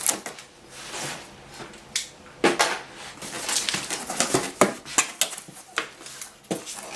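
Packaging being handled while a computer monitor is unboxed: rustling with a quick run of sharp clicks and knocks, busiest in the second half.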